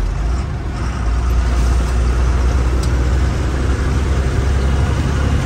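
Truck engine running while driving, a loud low drone that rises slightly in pitch just after the start and settles back near the end.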